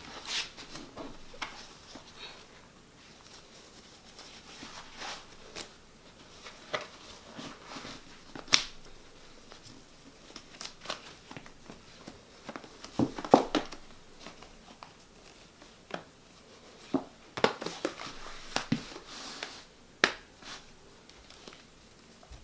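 Soft rustling and scattered light clicks and taps as hands handle a satin pointe shoe and wrap its ribbons around the ankle.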